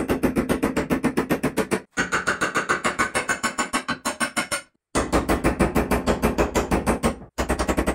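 Background music with a fast, steady beat, cut off briefly about two seconds in, again for a moment just before five seconds, and once more near the end.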